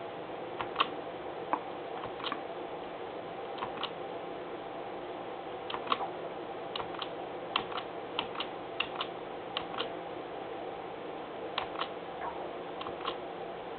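Irregular light clicks, about twenty scattered through, over a steady hum with hiss.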